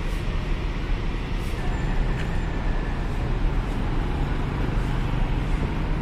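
Diesel engine of a Mercedes-Benz coach running as the bus pulls slowly forward, a steady low rumble. A brief faint high squeal comes about two seconds in.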